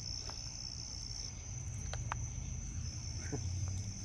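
Night insects trilling steadily at a high pitch, over a low steady rumble, with a few faint clicks.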